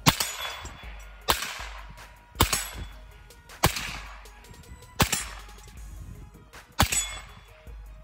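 Daniel Defense PDW in 300 Blackout fired in six single shots, paced about a second and a half apart, each with a ringing tail that dies away.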